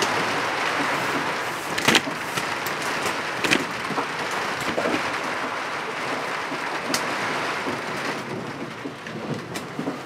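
Cloudburst downpour: heavy rain falling in a steady dense hiss, with a few sharp close ticks, the loudest about two seconds in.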